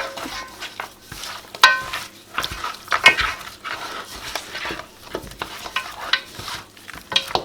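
Raw mutton chops being mixed through a spice-and-lemon marinade in a bowl: wet squelching and stirring, with irregular knocks and a few short clinks against the bowl.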